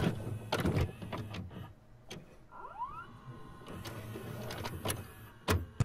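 VCR tape-deck sound effect: mechanical clicks and clunks of a cassette loading over a low motor hum, with a brief rising whine about two and a half seconds in.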